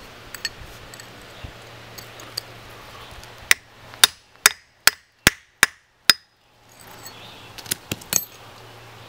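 Hammer striking a chisel held on a garnet-bearing rock to split it: a few light taps, then about seven hard, sharp blows in quick succession in the middle, and a few lighter taps near the end.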